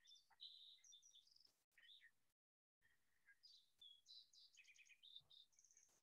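Recorded song of a sooty fox sparrow, played back faintly over a video call: two song phrases of short high notes and quick runs, the first from the start and the second beginning about three seconds in, with the sound cutting out briefly between them.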